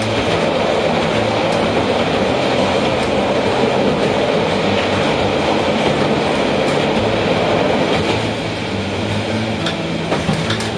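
Diesel railcar running at speed over a steel truss bridge, heard from inside the car: a steady rumble of wheels on rail over a low engine hum, a little quieter near the end as it comes off the bridge.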